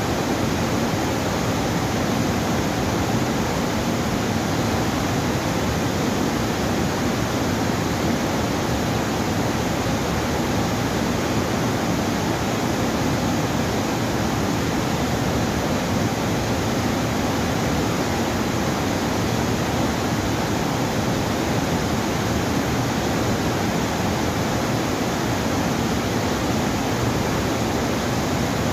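Steady rush of muddy water pouring through a dam's open sluice gates and over the weir below.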